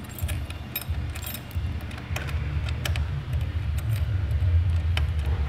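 A bunch of keys jangling and clicking as a key is worked in a motorcycle's ignition lock without turning it, over a low steady rumble.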